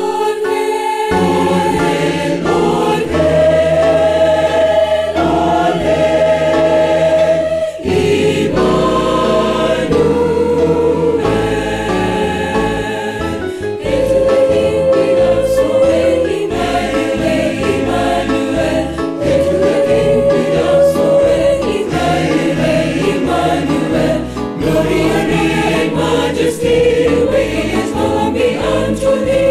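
Mixed church choir of men's and women's voices singing a gospel hymn in harmony, with long held notes over a moving bass line.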